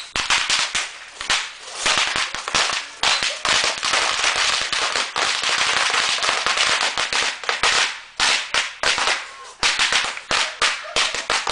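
Leftover fireworks going off in a rapid, continuous barrage of sharp crackling pops over a steady hiss, easing briefly about two-thirds of the way through before the pops pick up again.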